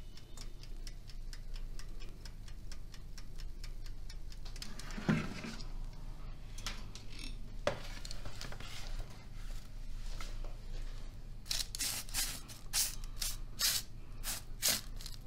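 Fingers pressing the crust of freshly baked bread rolls, giving a run of crisp crackling strokes, about three a second, in the last few seconds. Before that, faint fine crackling and a single low thump about a third of the way in.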